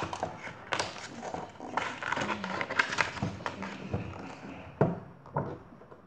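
Pages of a picture book being turned and handled close to the microphone: paper rustling with scattered sharp taps and knocks, busiest a couple of seconds in.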